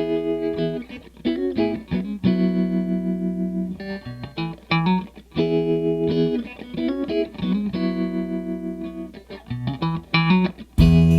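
Music: a guitar intro of picked notes and held chords, with the full band and drums coming in just before the end.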